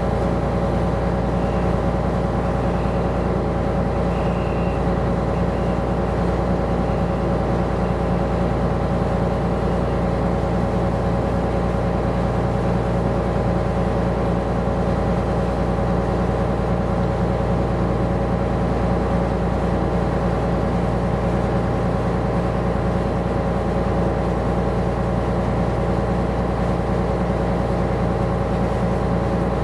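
Steady drone of a coastal tanker's engine and shipboard machinery, heard on board: an unchanging hum made of several low, steady tones.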